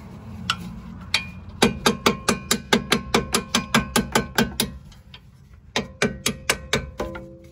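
A fast, even run of sharp metallic clicks, about four or five a second, that stops after about three seconds; a few more clicks follow near the end. The clicks come from hand-tool work on the car's rear suspension.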